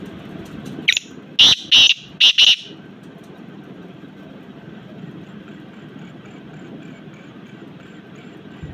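Young black francolin calling: one quick burst of about five loud, harsh notes, about a second in.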